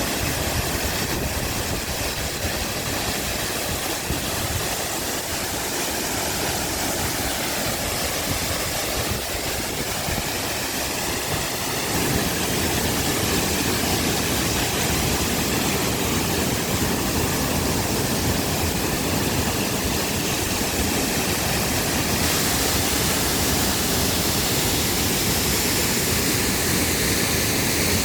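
Waterfall: a steady, unbroken rush of falling water that grows louder and fuller about twelve seconds in.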